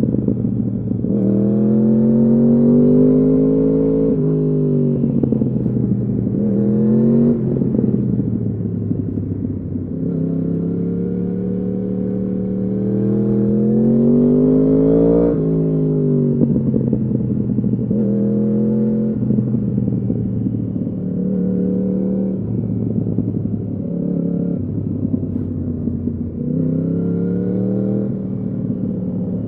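Yamaha R1's crossplane-crank inline-four engine through an Akrapovič exhaust, accelerating hard again and again: the pitch climbs, then drops sharply at each gear change. One long pull runs from about a third of the way in to halfway, and shorter climbs and drops follow.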